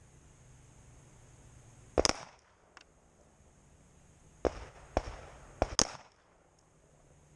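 Pistol shots: a quick pair about two seconds in, then four more in fast succession between about four and a half and six seconds.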